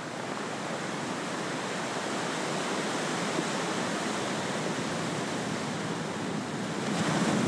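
Steady rushing water noise of a background nature soundscape, growing slowly louder.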